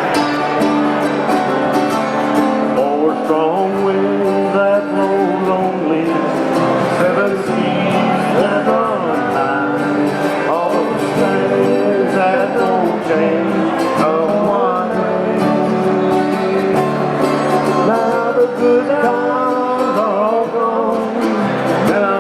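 A country-folk song played on acoustic guitar, with singing.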